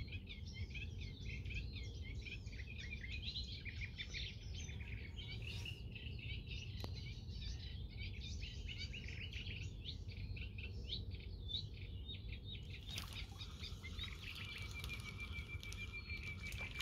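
Birds chirping and singing over a steady low background rumble, with a fast run of evenly repeated high notes near the end.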